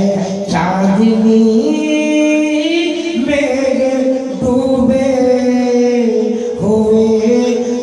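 A man singing a devotional song into a microphone, unaccompanied, holding long drawn-out notes that step up and down in pitch.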